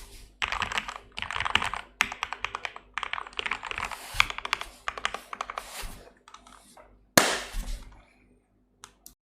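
Royal Kludge RK84 mechanical keyboard with lubed Gateron Milky Yellow linear switches, PE foam, tempest tape and case foam mods, being typed on quickly in dense runs of keystrokes with short pauses. A single louder stroke about seven seconds in is followed by a few sparse keypresses before the typing stops.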